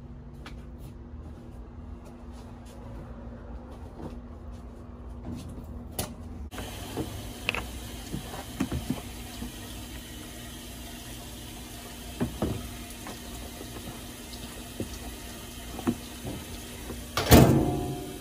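Top-loading washing machine beginning to fill: a steady rush of water starts suddenly about six seconds in and keeps running, with a few light knocks and a brief louder noise near the end.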